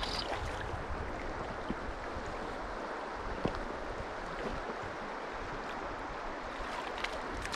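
Steady rush of fast-flowing stream water around a drifting boat, with a small splash on the surface right at the beginning and a few faint knocks.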